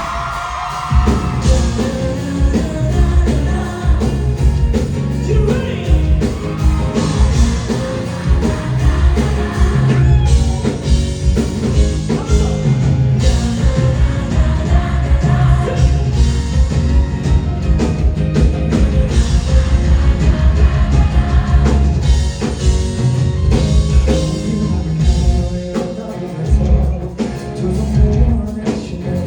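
Live rock band playing loud: drums and bass heavy, with guitar and some singing over them.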